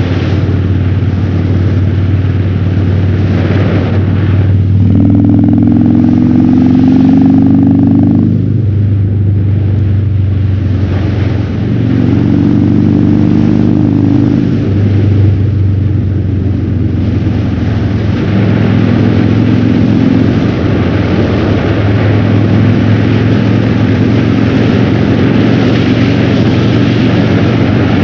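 Harley-Davidson Fat Bob's V-twin running through a KessTech ESM3 exhaust in its legal mode, heard from the rider's helmet with wind noise. The engine note is steady, and it pulls harder twice, at about five seconds and again around twelve seconds in, easing off after each.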